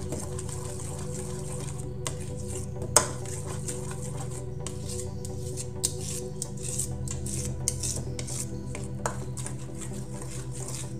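Okoy batter being stirred by hand in a stainless steel bowl, with a few sharp knocks against the metal bowl; the loudest comes about three seconds in.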